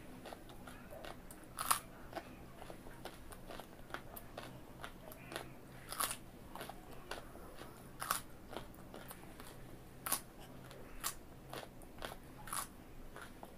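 A person biting and chewing raw carrot: sharp crunches every one to two seconds, with fainter crackling chews between them.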